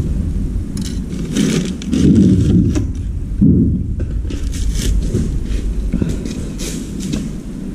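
Scraping and shuffling of objects being moved about on a concrete floor, over a steady low rumble, with a few heavier bumps.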